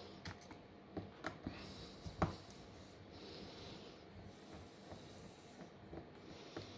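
Faint clicks and taps of small tools and phone parts being handled during a smartphone teardown, with a sharper tap about two seconds in.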